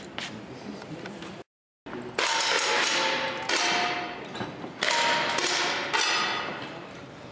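10 m air rifle shots on an indoor range: four sharp cracks about a second and a quarter apart, each followed by metallic ringing that dies away in the hall. Before them there are faint clicks and a brief dropout.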